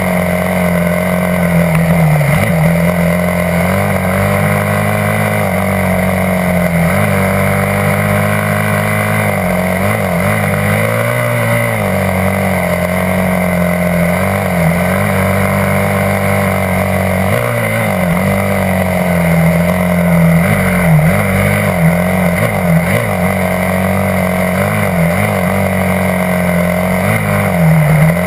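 Dirt bike's single-cylinder engine running under way on a trail, heard from the bike itself. Its pitch rises and falls with the throttle, with several brief dips as the rider rolls off and gets back on the gas.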